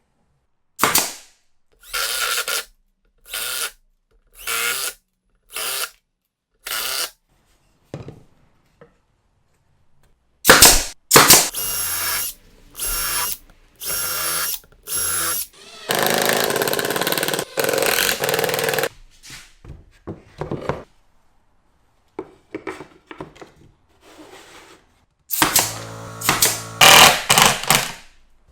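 Power drill running in repeated short bursts of about half a second with brief pauses between them, then a longer run of about three seconds midway and a quick cluster of bursts near the end.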